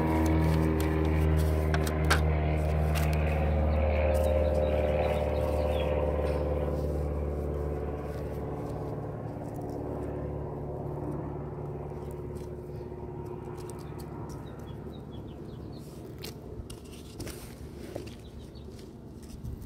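A motor engine running steadily with a low hum, fading away over about ten seconds. A few short scrapes and knocks come through now and then.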